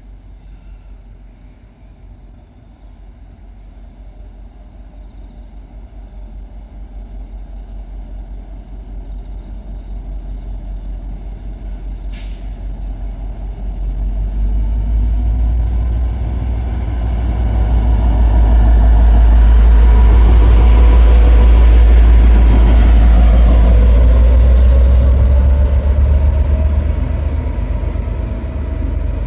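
V/Line N class diesel locomotive towing a VLocity railcar set past, its deep engine rumble building to its loudest about 20 seconds in and then easing as it goes by. A sharp click about 12 seconds in.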